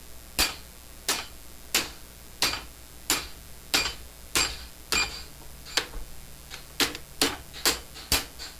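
Hand hammer striking a red-hot mild-steel band as it is shaped around a jig held in a vise, about a dozen sharp blows at an even pace of roughly one and a half a second, with a brief break a little past the middle.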